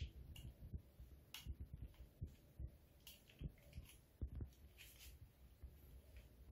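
Faint, irregular soft thuds of a cat's paws landing on a laminate floor as it rears up and bats at a feather wand toy, with a few light clicks.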